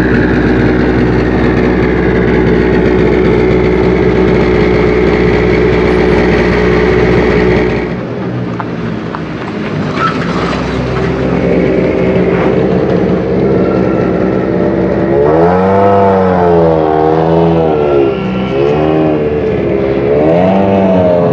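Mini Countryman WRC rally car's 1.6-litre turbocharged four-cylinder engine, idling steadily and loud at first, then after a cut running more quietly. In the last six seconds it is revved in repeated blips, the pitch rising and falling each time.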